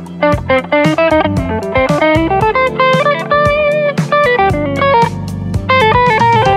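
A PRS McCarty 594 two-humbucker electric guitar plays a lead line of single notes, with vibrato on the held notes. Behind it runs a backing track with drums.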